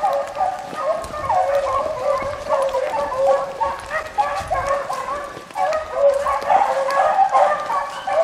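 A pack of beagles baying in full cry on a rabbit's trail, several hounds' calls overlapping without a break.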